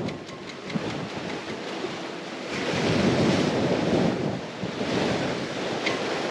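Sea water rushing and splashing around a sailing yacht under way, with wind on the microphone; the rush swells for a couple of seconds midway.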